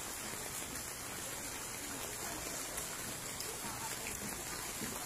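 Steady rain falling on standing floodwater, an even hiss with no separate strikes.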